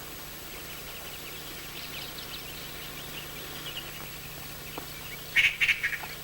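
Animal calls: many short high chirps, then a louder burst of sharp calls a little after five seconds in, over a steady low hum.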